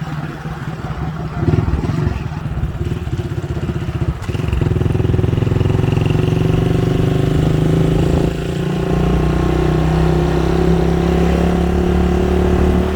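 A motor vehicle's engine running, picking up about a second and a half in and again around four and a half seconds in, then holding steady.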